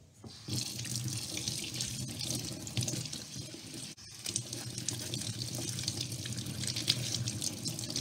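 Kitchen faucet running into a stainless steel sink, the stream splashing as vegetables are rinsed under it by hand. The water starts about half a second in and breaks off briefly about four seconds in.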